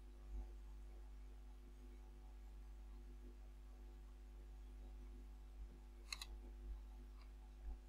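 Near silence with a faint steady electrical hum; a computer mouse clicks sharply about six seconds in, with a fainter click about a second later, as knife-tool cut points are placed.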